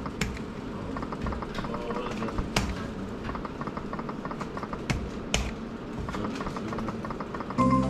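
Buttons or touchscreen of a betting or gaming terminal being pressed: scattered sharp clicks and taps over steady room noise. A short electronic beep sounds near the end.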